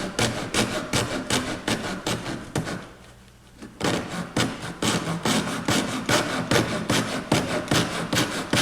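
Coping saw cutting through wood in quick back-and-forth strokes, several a second, with a short pause about three seconds in.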